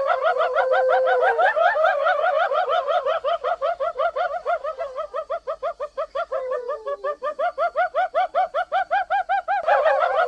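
Hyena giggling: a fast, continuous run of short high-pitched rising-and-falling whoops, about six or seven a second, that fades somewhat in the middle and grows stronger again near the end.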